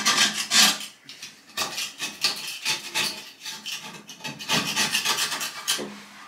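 Utility knife blade scraping limescale off the ceramic cistern seat of a toilet bowl, in quick repeated scraping strokes, cleaning the seat so the new cistern gasket will seal.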